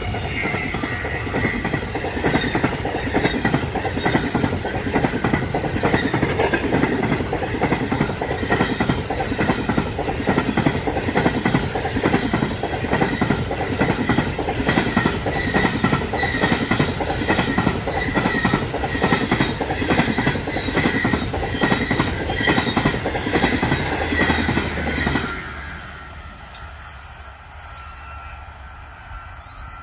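The Ghan's stainless-steel passenger carriages rolling past close by, the wheels clicking in a steady rhythm under a constant high ring. The sound drops off suddenly about 25 seconds in as the last carriage goes by, leaving a faint low rumble.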